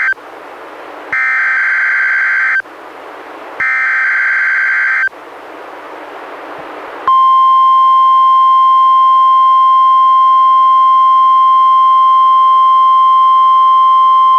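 NOAA Weather Radio Required Weekly Test alert: the end of one burst, then two more buzzy bursts of SAME digital header data, each about a second and a half long. About seven seconds in, after a short pause, the steady 1050 Hz warning alarm tone starts and holds.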